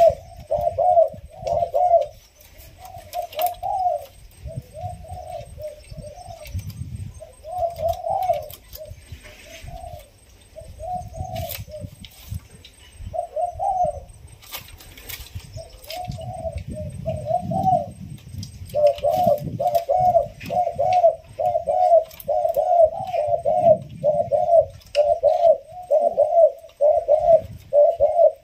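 Caged spotted doves cooing, a six-month-old bird starting to coo against a rival. The coo phrases come in scattered runs, then follow one another quickly and without a break for the last ten seconds or so, with faint scattered clicks.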